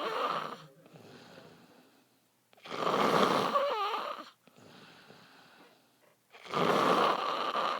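A drunk man snoring very loudly in his sleep: three long, harsh snores about four seconds apart, the first already under way, with faint breathing between them.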